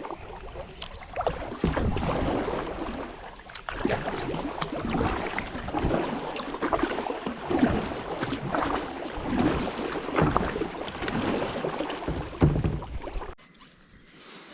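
Paddle strokes in the water moving a small fishing boat, splashing in uneven surges about once a second, then stopping about 13 seconds in.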